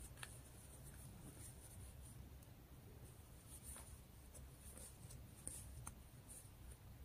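Near silence: faint rubbing of cotton yarn and a few soft ticks from a metal crochet hook as stitches are worked.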